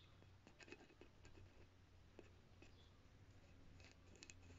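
Near silence, with faint scratching and a few light clicks of a paintbrush worked over a patch on a soft plastic ball, in two short clusters: about half a second in and near the end.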